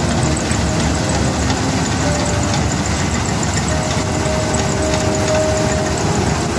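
Swaraj 8100 combine harvester running steadily while cutting and threshing paddy: an even, unbroken engine and machinery noise.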